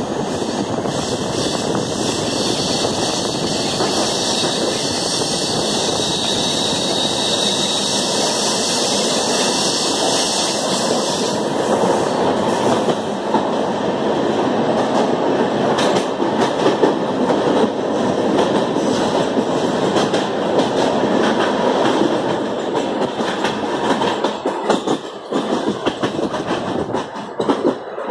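Passenger train coach running through a railway tunnel: a steady loud rumble of wheels on rails, with more frequent clicks and knocks from about twelve seconds in. Near the end the sound becomes uneven as the train comes out of the tunnel.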